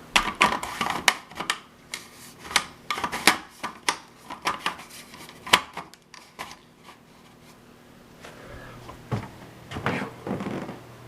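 A run of sharp knocks and clatters of things being handled and set down, closely spaced for about six seconds, then a few softer knocks near the end.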